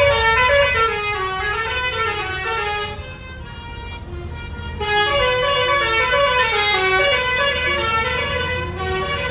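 Bus telolet horn, a Basuri V3 musical air horn, playing a quick melody of stepping notes; it drops away for a couple of seconds in the middle, then plays on over a low rumble.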